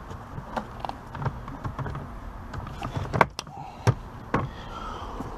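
Scattered clicks and knocks of plastic dashboard trim being handled under a car's glovebox, the two loudest a little past three seconds in and near four seconds.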